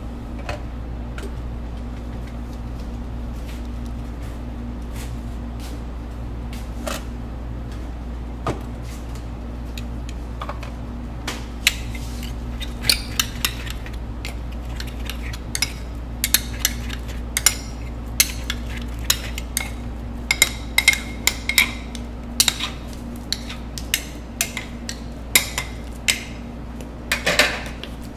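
Two metal ice cream spades scraping and clacking on a frozen granite slab as ice cream is chopped and folded. The strikes come sparse at first, then quicken into rapid clacks from about halfway through, over a steady low hum.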